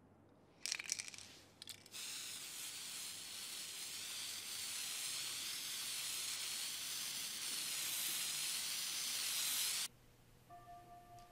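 Aerosol spray-paint can, shaken with a brief rattle and then sprayed in one long steady hiss of about eight seconds that cuts off suddenly near the end.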